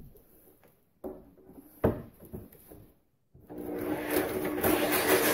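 Handling knocks and rustles as a jigsaw is set against a fiberglass hull, with one sharp knock about two seconds in. Then, about three and a half seconds in, a corded DeWalt jigsaw starts up and runs steadily and loudly, its blade cutting a scupper opening through the fiberglass bulwark between drilled pilot holes.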